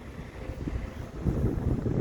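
Wind buffeting the microphone in irregular low rumbles, growing louder after about half a second, with a faint steady hum underneath.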